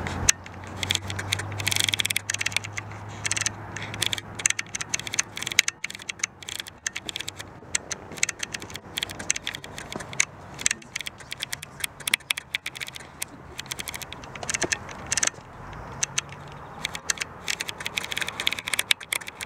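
Irregular rattling and clicking, many sharp clicks a second throughout, over a low hum that fades out about four seconds in.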